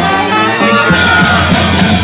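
A brass band playing loud, continuous music with held notes.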